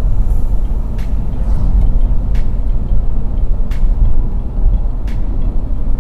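Suzuki Carry van's engine and road noise heard from inside the cab while driving: a loud, steady low rumble. A faint tick recurs about every second and a half.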